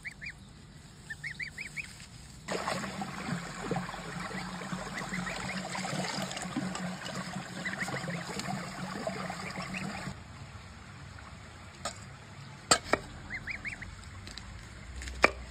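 A gosling peeping in short runs of three or four rising peeps, at the start, about a second in and again near the end. In between, from about two and a half to ten seconds, a louder stretch of noise, and near the end a few sharp knocks of a knife cutting on a wooden board.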